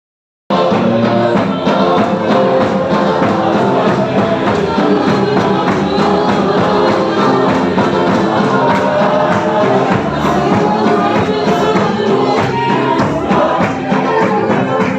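A group singing a gospel hymn to a steady beat with a tambourine, starting about half a second in.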